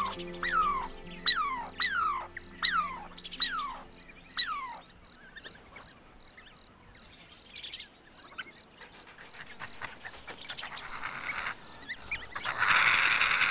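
A series of about seven whistled animal calls, each sliding down in pitch, roughly two every second, over a steady fast insect ticking. The calls stop about four and a half seconds in, leaving the insect ticking, and a brief hiss of noise rises near the end.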